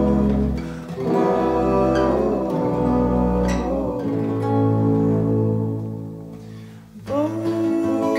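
Instrumental passage of a folk song: fingerpicked acoustic guitars over a bowed upright bass, chords ringing and changing about once a second. The sound fades down to a dip about seven seconds in, then a new chord comes in.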